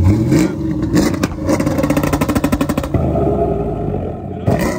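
A vehicle engine revving: its pitch climbs over the first second or so, then it runs with a rapid even pulsing before settling into a steadier note.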